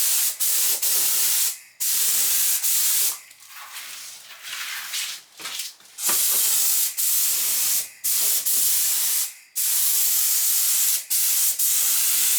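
Compressed-air paint spray gun spraying two-pack paint: a loud hiss that starts and stops over and over in bursts of up to about a second and a half, with a quieter patch about four to five seconds in.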